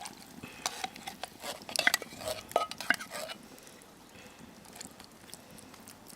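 Metal spoon clinking and scraping against metal cookware while chili ingredients are added and stirred, a run of sharp clinks for about the first three and a half seconds, then quieter.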